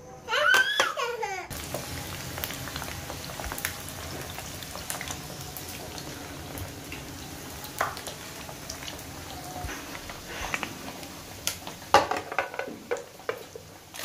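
Potato chips frying in hot oil in a pan, a steady sizzling hiss with small crackles. A brief snatch of music in the first second or so, and a few knocks near the end.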